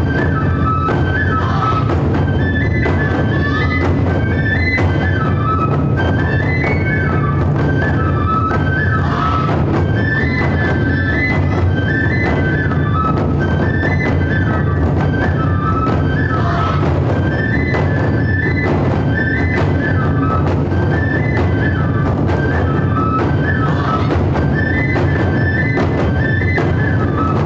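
Japanese festival music: taiko drums beating a dense, steady rhythm under a high bamboo flute playing a repeating melodic phrase.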